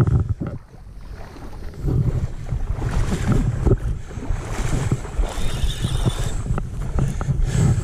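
Wind buffeting the microphone in gusts over shallow water lapping and splashing, with a lull about half a second in.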